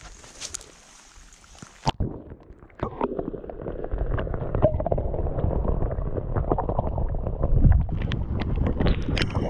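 Camera microphone plunging under a lake's surface: rain hiss is cut off abruptly about two seconds in and gives way to muffled underwater sloshing, gurgling and knocking. Near the end, running footsteps slap on wet pavement.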